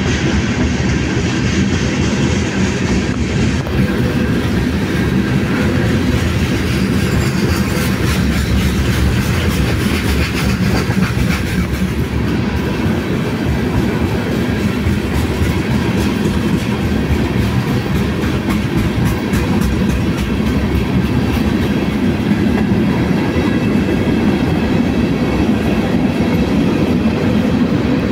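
Freight train of tank cars rolling past close by: a steady, loud rumble of steel wheels on the rails, with a rapid run of clicks as the wheels cross rail joints.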